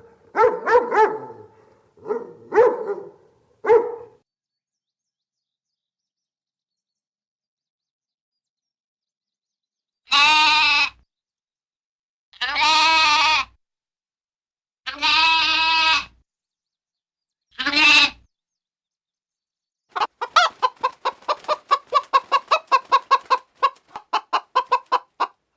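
A dog barks a few times, then stops. After a pause come four separate bleating calls of about a second each, evenly spaced. Near the end a hen clucks rapidly, about four to five clucks a second.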